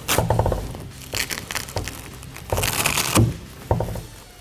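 Hood bra's nylon strap being pulled tight through its buckle and the vinyl cover handled on the hood: several bursts of rustling and scraping, with a short click near the end.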